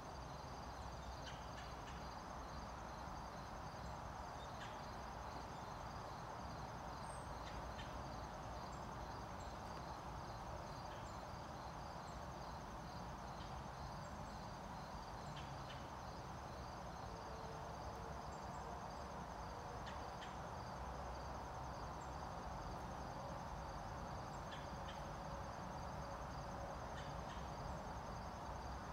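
Steady chorus of crickets and other insects, high-pitched fast pulsing trills that never let up, over a steady background hiss, with a few faint ticks.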